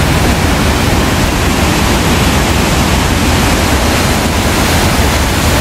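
Nairn Falls on the Green River, a loud, steady rush of white water pouring into a rock pothole in the gorge.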